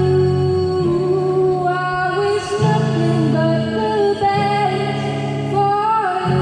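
A song with a woman singing long held notes over sustained chords.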